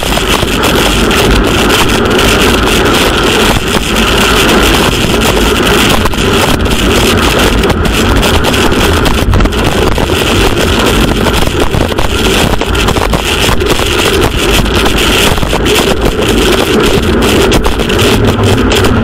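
Loud, steady wind rush buffeting a bike-mounted camera's microphone at about 60 km/h, with the hiss of road-bike tyres on a rain-soaked road.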